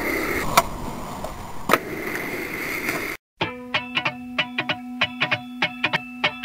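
Skateboard on a concrete ramp: two sharp clacks of the board over a steady rolling noise. After a brief gap about three seconds in, plucked-string music starts, with quick picked notes over a held low note.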